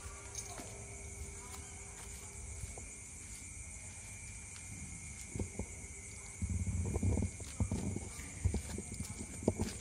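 Footsteps and scuffs on concrete with scattered light taps, over a steady high-pitched drone. Louder low bumps and rumbling start about two-thirds of the way in.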